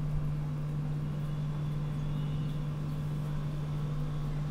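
A steady low hum with a faint rumble beneath it, unchanging throughout.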